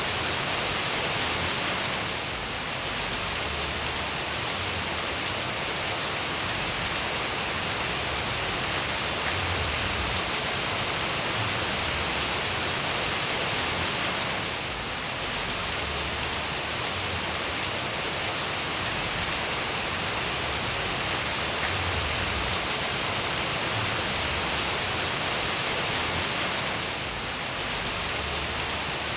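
Steady rain falling: an even, unbroken hiss, strongest in the high range, that dips briefly in level three times.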